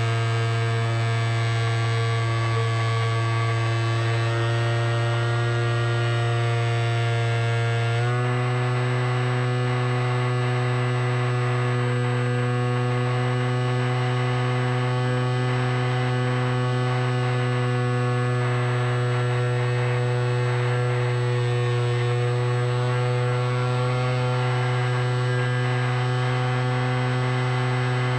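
Drone's electric motors and propellers giving a steady buzzing hum; the tone changes about eight seconds in.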